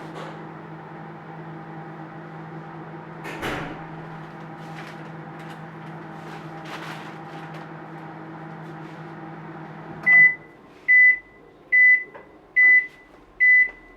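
Microwave oven running with a steady hum, which cuts off about ten seconds in. Then five short, loud beeps about a second apart signal that the heating cycle is finished. A single knock comes a few seconds in.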